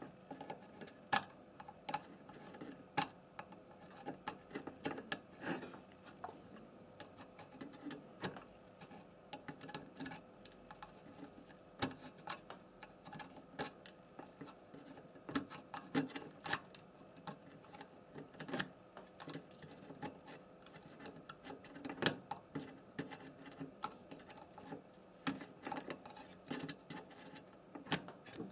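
Irregular small clicks and taps of pliers and a soldering iron tip against metal pin stubs and the circuit board as the leftover pins of a cut-out chip are heated and pulled out one by one.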